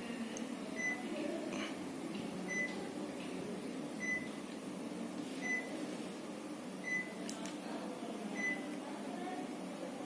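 Panasonic CS-PC12NKP split air conditioner running with a steady hum, while its indoor unit gives six short, high beeps about a second and a half apart, the beep it makes on receiving a remote-control command.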